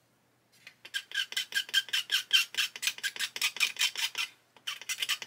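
A hand tool scraping paint off a painted plastic model-kit part in rapid back-and-forth strokes, each with a chirpy squeak. The paint is being removed to get a stronger glue joint. The strokes start about a second in, stop briefly about four seconds in, then resume.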